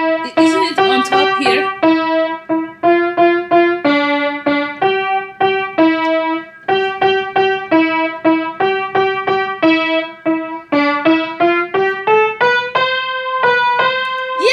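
A young child playing a piano one key at a time, about two to three separate notes a second over a few neighbouring keys, with the notes stepping upward near the end.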